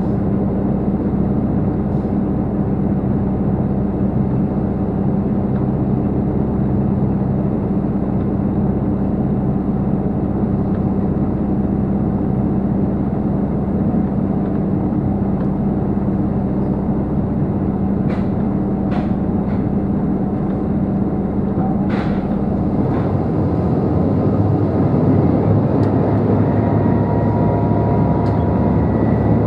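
Inside a JR Shikoku 2700 series diesel railcar running at speed: a steady drone of engine and wheels on rail with a low hum. A few sharp clicks come about two-thirds of the way through, and near the end the hum changes and a faint rising whine comes in.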